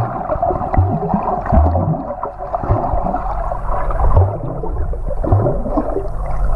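Muffled underwater noise from a camera submerged in a swimming pool: water sloshing and bubbling, with low thuds now and then.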